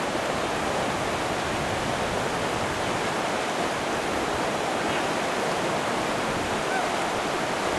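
River rapids rushing steadily: whitewater pouring over a steep drop.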